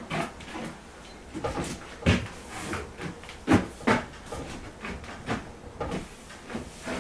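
Irregular knocks and clunks, some close together and a few louder ones in the middle, like parts or tools being handled and set down.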